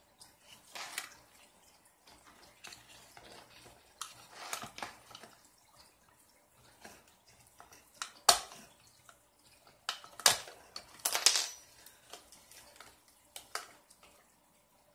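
Small hard parts and tools clicking and clinking on a work surface as an RC car is taken apart, with a few sharper clacks in the second half.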